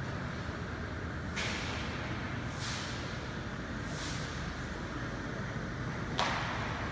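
Factory machinery running with a steady noise, broken by short hissing bursts four times, the last one the loudest.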